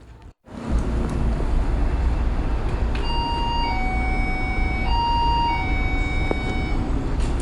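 Steady low rumble of a moving vehicle, heard from inside. A two-note falling chime sounds twice, a few seconds in.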